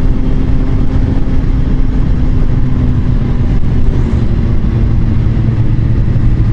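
A motorcycle engine running steadily at cruising speed, heard from on the bike, with steady wind and road noise over it.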